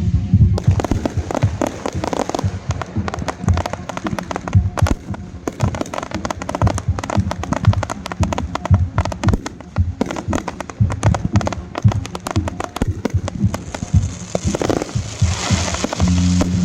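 Fireworks finale: a rapid, dense barrage of bangs and crackles, many reports a second, with a brighter hissing, crackling burst near the end.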